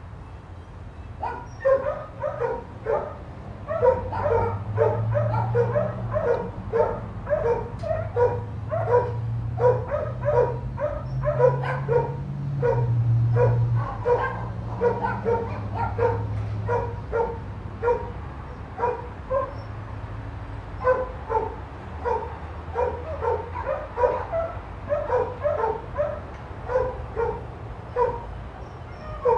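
A dog barking over and over in short, evenly spaced barks, about two a second, with few breaks, over a steady low hum.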